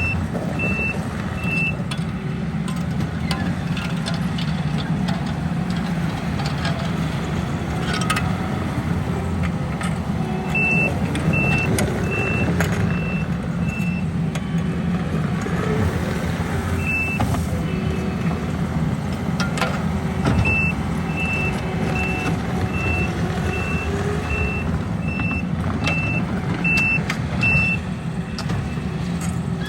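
Engine of heavy paving equipment running steadily, its reversing alarm beeping about twice a second in several runs as the machine backs up.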